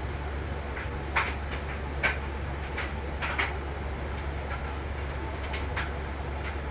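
Dry-erase marker squeaking on a whiteboard in short, quick strokes as words are struck through, over a steady low hum.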